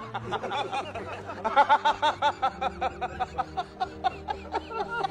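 Rapid laughter in runs of short, repeated pitched syllables, over steady background music.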